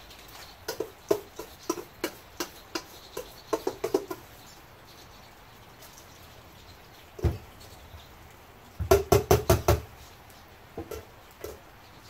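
Big spoon scooping sticky seed mix out of a metal mixing bowl and loading it into a seed-log tube. Scattered clicks and taps of the spoon, a single thump about seven seconds in, then a quick run of about seven knocks around nine seconds.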